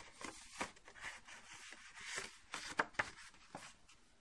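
Sheet of drawing paper folded into a paper popper, rustling and crinkling as it is handled and refolded, with a few sharp little crackles of the creases.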